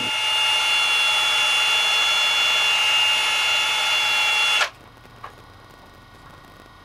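Power drill running at steady speed with a whine, spinning a pencil clamped in its chuck against a hand-held file to sharpen the pencil's tip. The drill cuts off suddenly about four and a half seconds in.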